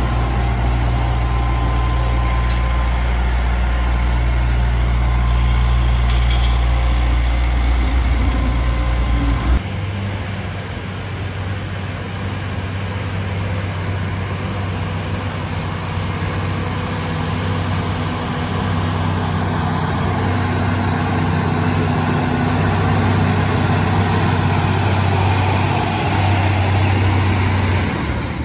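Heavy diesel engines of road-paving machinery (asphalt paver and rollers) running steadily, with the engine note changing abruptly about nine and a half seconds in.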